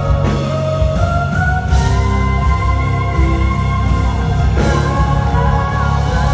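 Live pop music played loud: a band with a woman singing into a microphone over it.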